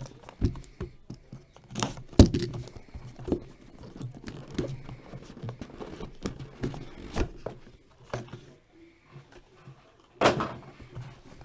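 Hands opening a trading-card box and handling its contents and packaging: scattered light taps and knocks, with a louder rustle lasting about a second near the end.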